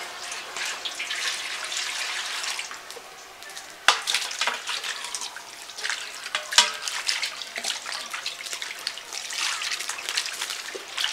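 Water poured into an aluminium basin, then cut hilsa fish pieces tipped in from a plate and washed by hand, splashing in the water. Two sharp knocks, about four seconds in and again a couple of seconds later, are the loudest sounds.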